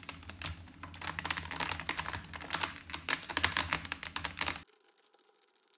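Phillips screwdriver turning out the screw that holds a Dyson V6 (SV03) vacuum's battery to its plastic body: a rapid run of small clicks and scraping. It stops abruptly near the end.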